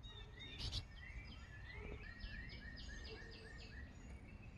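Faint songbird singing a quick run of repeated short chirping notes, with a light knock a little under a second in.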